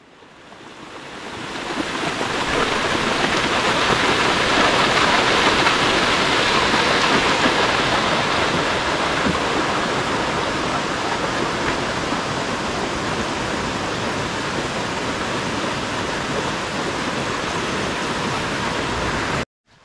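Waterfall's rushing water, a steady even noise that fades in over the first couple of seconds and cuts off abruptly near the end.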